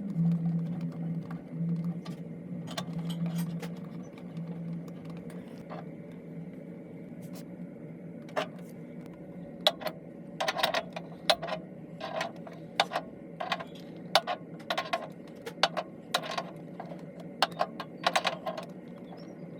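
A run of short clicks and knocks, thickest in the second half, from metal fittings and parts being handled and set in place, over a steady low hum.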